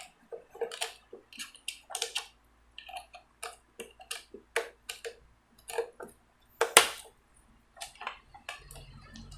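Irregular sharp plastic clicks and taps, a few a second, with one louder snap about two-thirds of the way in: a wireless keyboard-and-mouse set being handled while its batteries are fitted.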